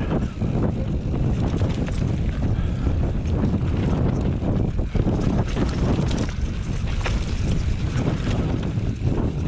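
Mountain bike rolling over a rutted dirt singletrack, with a steady rumble of wind buffeting the GoPro's microphone, tyre noise on the ground and scattered small rattles and knocks from the bike.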